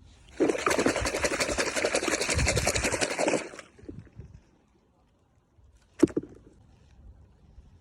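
Plastic toy packaging being crinkled or torn open for about three seconds, as a dense, rapid crackle. A single sharp click follows about six seconds in.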